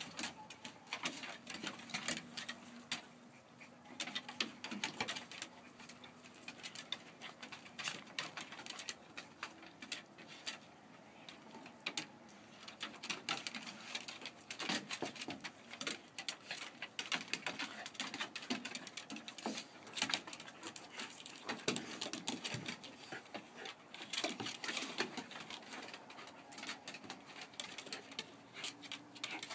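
Two dogs play-fighting on a wooden deck: their claws click and scrabble on the boards amid constant scuffling. A few low, drawn-out tones come and go.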